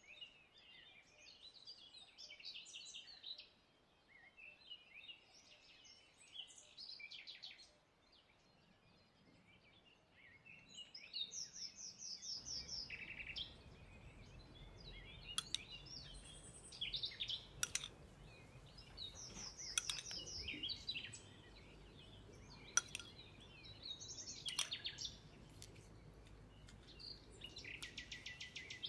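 Small birds chirping and singing, with short high calls and quick trills repeating throughout. A few sharp light clicks come in the second half.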